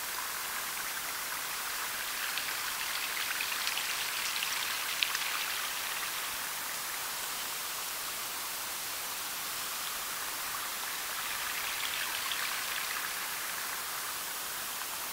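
Steady hiss of outdoor ambience amplified through a parabolic dish microphone, with a few faint ticks and one small tick about five seconds in; nothing distinct stands out in it.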